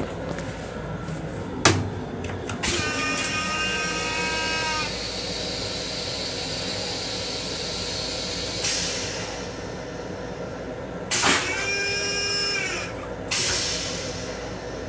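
Train toilet flush cycle in an M7 rail car: a sharp click, then a motor whine with a rushing hiss for a few seconds. About nine seconds later a second click brings a shorter whine and another rush of air or water.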